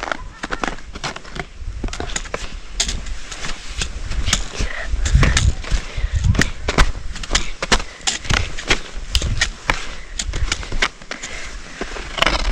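Skis clattering and scraping over bumpy snow in a quick, irregular run of sharp knocks, with wind rumbling on the microphone.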